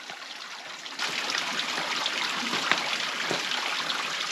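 Shallow stream of running water trickling over rocks, in a steady rushing hiss that gets louder about a second in. The water is low after a drought.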